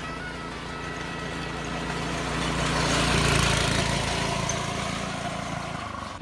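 Yerf Dog go-kart's small engine running as the kart drives by, growing louder to a peak about three seconds in and then fading away. It is running harsh.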